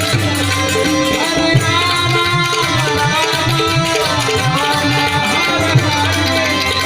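Gujarati santvani devotional music: tabla playing a fast rhythm, its bass drum gliding up and down in pitch, under a melodic line that bends smoothly up and down.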